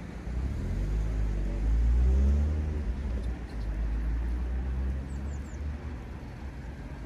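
Road traffic passing close by: a vehicle's engine rises to its loudest about two seconds in and fades away, over a steady low rumble of traffic. A few faint high chirps come about five seconds in.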